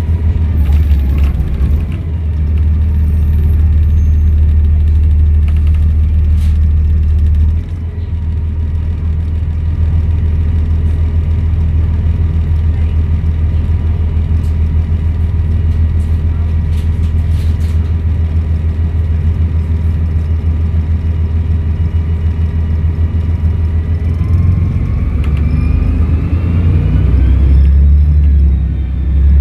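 Volvo B7RLE bus's diesel engine running over a heavy low rumble, with a thin, steady turbo whistle. About 24 seconds in, the engine pulls harder and the whistle rises in pitch.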